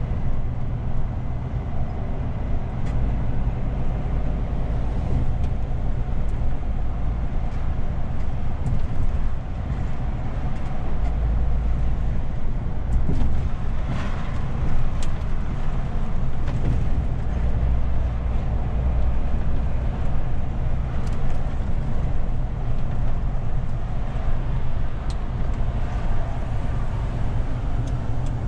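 A DAF CF 450 truck's diesel engine running under way, heard from inside the cab together with road and tyre noise. The deep engine rumble swells and eases a few times, with the odd faint click from the cab.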